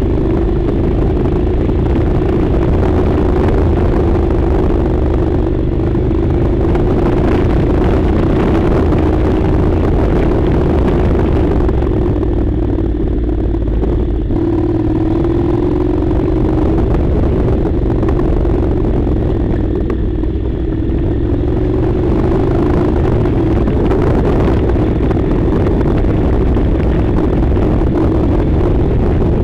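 Honda NC700's parallel-twin engine running steadily under way, its note rising and falling slightly a couple of times.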